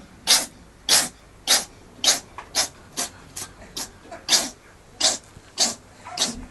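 A cat sneezing over and over in a long fit: about a dozen short sneezes, roughly two a second.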